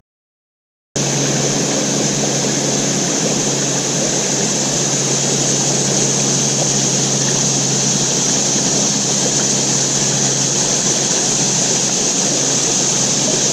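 Steady rush of flowing river water with a constant high-pitched insect drone over it, coming in suddenly about a second in. A faint low steady hum runs underneath.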